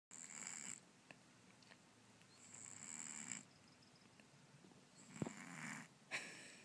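Kitten snoring through a nose blocked by a cold: slow, raspy breaths a few seconds apart, each carrying a thin high whistle.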